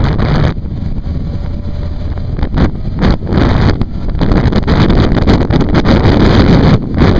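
Wind rushing and buffeting over a microphone on a moving motorcycle, with the motorcycle's engine running underneath; it grows louder in the second half as the bike picks up speed.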